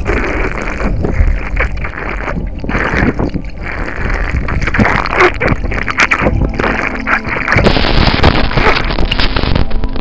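Muffled water sloshing and gurgling against a waterproof camera, with frequent small knocks and bumps on its case. About three-quarters of the way through, the sound turns brighter and hissier.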